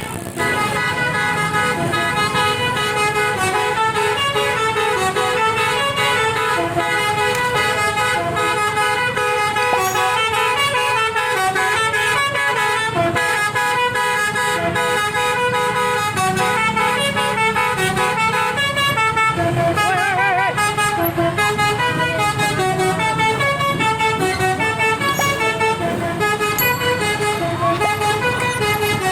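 A bus's telolet musical air horn (basuri horns played by a melody module) plays a long tune of quick stepped notes without a break, warbling in a trill about two-thirds of the way through. A low engine rumble runs underneath.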